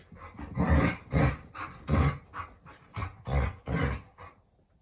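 Alaskan malamutes, an adult and a young puppy, play-fighting with a string of short growls, about two a second, that stop about four seconds in.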